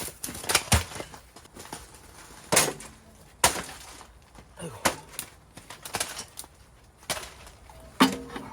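Firewood logs knocking and clattering together as they are handled and stacked, a string of sharp irregular knocks about a second apart.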